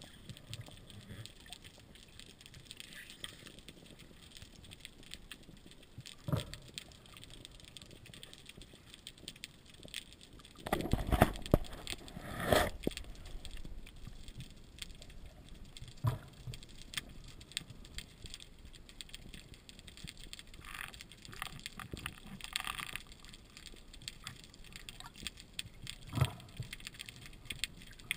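Gladiator 110 speargun being handled underwater: scattered sharp clicks and knocks, with a louder run of knocks about 11 to 13 seconds in.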